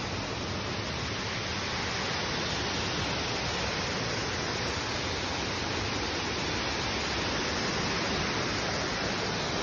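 Steady rush of a waterfall, an even, unbroken roar of falling water.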